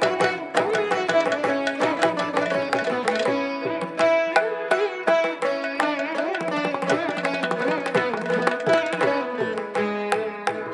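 An ensemble of Saraswati veenas playing Carnatic music together: a quick run of plucked notes that ring on, with sliding bends in pitch between them.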